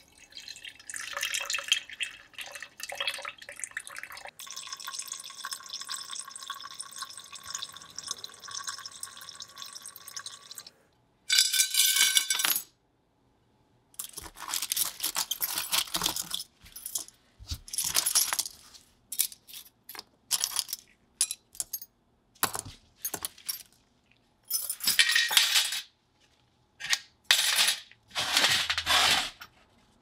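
Liquid splashing and dripping in a glass jar as small steel knife parts are handled in it. Then paper towel rustling in loud bursts while the parts are rubbed dry, and short metallic clinks as the parts are set down on a metal baking tray.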